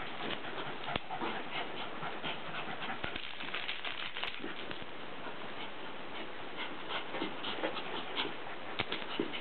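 Small wet chihuahua rolling and rubbing itself on carpet to dry off: a continuous scratchy scuffing of fur against the carpet in many quick strokes, with short dog noises now and then.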